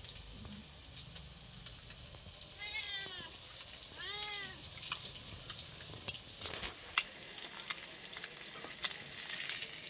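Oil sizzling steadily in a pan as fish curry cooks, with light clicks of utensils. A cat meows twice, about three and four seconds in, each call rising and falling.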